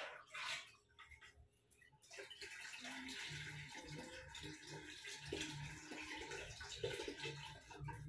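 Buttermilk poured from a small steel cup through a plastic strainer into a steel pot: a steady liquid trickle starting about two seconds in, after a few light knocks near the start.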